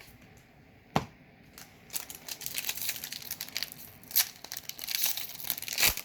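Foil booster-pack wrapper of a Magic: The Gathering draft pack being torn and crinkled, a pack being opened. A single sharp tap about a second in, then steady crinkling with a few louder crackles from about two seconds on.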